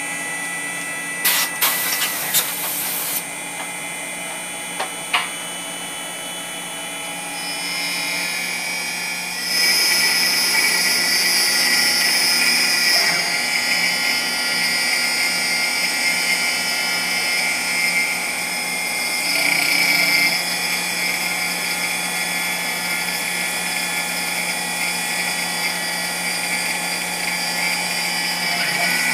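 6040 CNC router spindle running steadily while a single-flute end mill cuts out an aluminium part, with a few sharp clicks early on. The cutting gets louder about nine seconds in and stays so.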